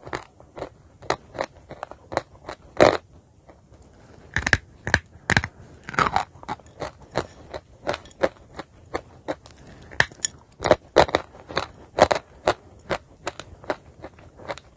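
Dry chalk being chewed and crushed into crumbs: a steady run of sharp, irregular crunches, two or three a second.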